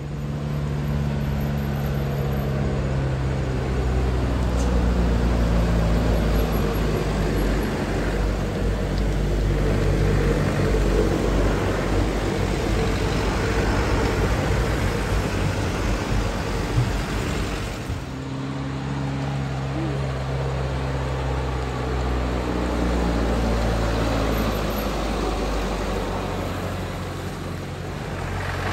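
Diesel engines of heavily loaded trucks running as they pass close by: a steady, deep engine drone that breaks off and picks up again about two-thirds of the way through.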